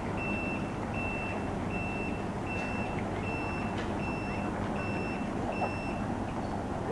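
An electronic warning beeper sounding a steady series of high beeps, about one every three-quarters of a second, that stops about six seconds in, over a steady low rumble.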